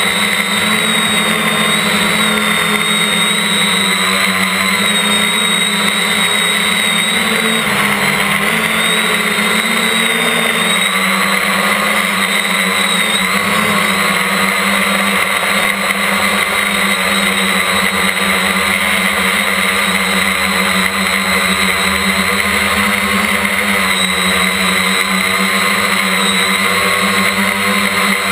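Quadcopter's electric motors and propellers whining steadily, heard close up from the craft itself, the pitch wavering slightly as the motors adjust in flight.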